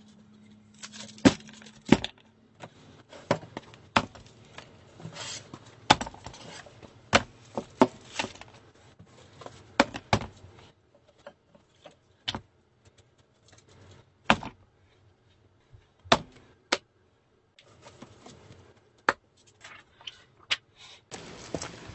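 Sketchbooks, drawing pads and paper rolls being set down and stacked on a wooden desk: a run of irregular sharp knocks and slaps with brief scraping between them, thinning out for a few seconds in the middle.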